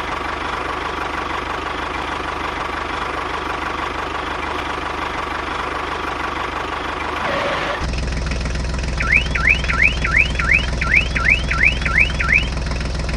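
A steady whirring noise with a thin steady tone, which changes abruptly about eight seconds in to a low, steady engine-like hum. Over the hum comes a quick string of about ten sweeping electronic siren whoops, roughly three a second, lasting about three seconds.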